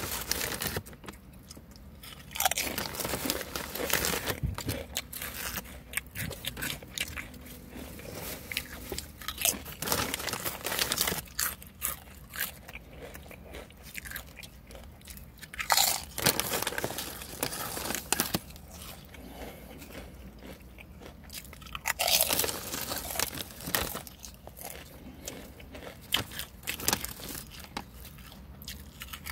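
Wise Honey BBQ potato chips being bitten and chewed, crisp crunches coming irregularly bite after bite. The foil-lined chip bag crinkles as chips are pulled out of it.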